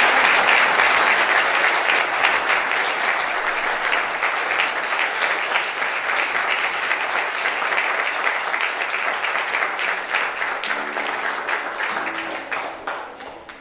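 Congregation applauding, loudest at the start and slowly dying away near the end.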